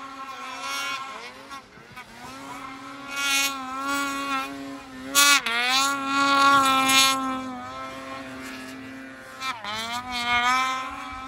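Snowmobile engine with an aftermarket exhaust can, revving up and down again and again as the sled carves through deep powder. The revs sweep up sharply about five seconds in and again near the end.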